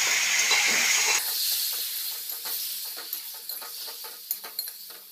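Water added to hot oil in a wok-style pan sizzling loudly around stuffed bitter gourds. The hiss drops sharply about a second in and then dies away, while a spatula gives a few sharp taps and scrapes against the pan.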